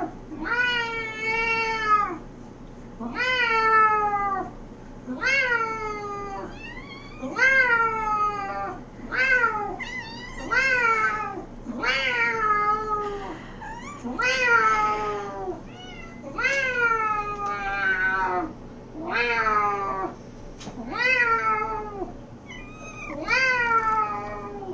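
A man imitating a cat, meowing over and over: drawn-out meows roughly one every one to two seconds, each sliding down in pitch. A few times a second meow overlaps his.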